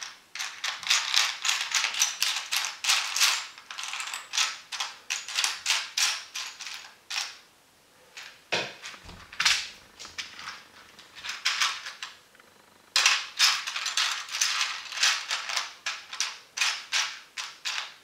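Small plastic LEGO pieces rattling and clicking as a finger stirs through them in a plastic parts tray, in three runs with short pauses between, and one duller knock about eight and a half seconds in.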